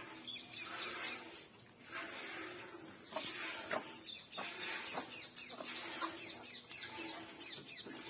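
Chickens clucking in short calls, with a run of quick, high, falling chirps through the second half.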